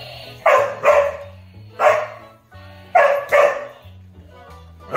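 A dog barking, six loud barks, some in quick pairs, over music.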